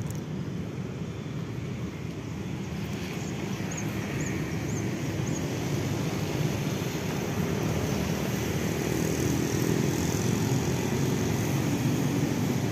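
A distant engine's steady drone, slowly growing louder.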